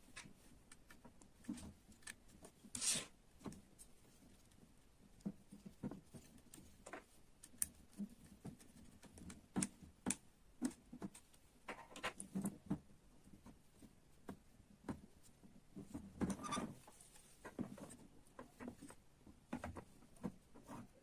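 Small parts of an excavator model kit being handled and fitted: faint, irregular light clicks, taps and short rustles.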